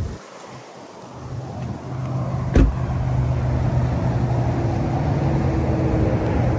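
A car door, the 2023 Chevrolet Blazer RS's driver's door, shuts with one solid thump about two and a half seconds in. A steady low vehicle hum runs on after it.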